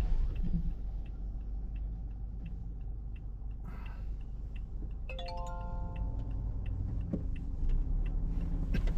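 Vehicle running with a steady low rumble, with faint regular ticking over it. About five seconds in, a short series of electronic tones steps up in pitch.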